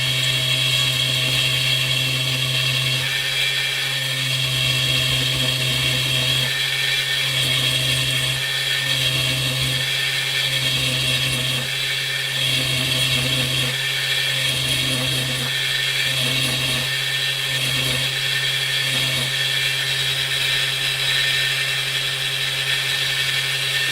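Small power tool's motor running steadily while grinding down a 3 mm brass rod, the grinding note swelling and easing roughly once a second as the work is pressed on and eased off.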